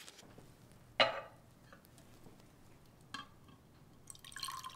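A sharp clink about a second in, then near the end a drink pours from a steel cocktail shaker into a martini glass, splashing with a steady filling tone.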